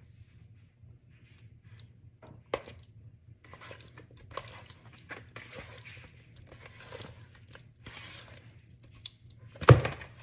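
A bare hand squishing and tossing seasoned redfish chunks in a plastic tub: wet squelching in quick runs, with a few clicks, and one sharp knock near the end that is the loudest sound.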